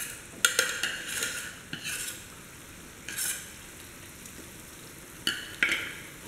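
Metal spoon scraping and clinking against a steel pot as mashed cooked moong dal is spooned into a pan of hot ghee and roasted wheat flour and stirred, with a faint sizzle between the strokes. The scrapes come in a quick cluster in the first two seconds, once around three seconds in and twice near the end.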